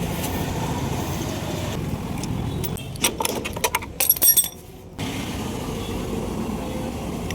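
Metallic clinking and jingling about three seconds in, ending in a brief high ringing, over a steady vehicle-engine background.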